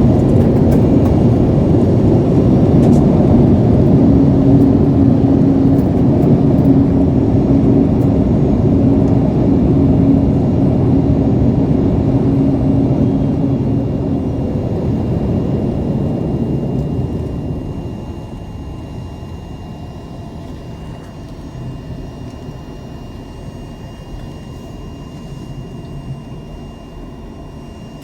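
Boeing 787-9 airliner rolling out on the runway just after landing, heard from inside the cabin: a loud rumble of engines and wheels with a steady tone running through it. About 17 seconds in it eases to a quieter, steady hum as the aircraft slows.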